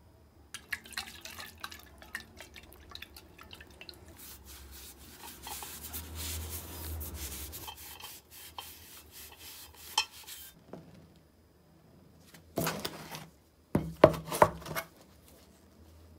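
Cloth rubbing over the metal body of an antique hand-cranked grater, a scratchy scrubbing with many small clicks, for about ten seconds. Near the end a metal tin is tipped and rolled on a wooden workbench, clattering in two short bursts, the second the louder.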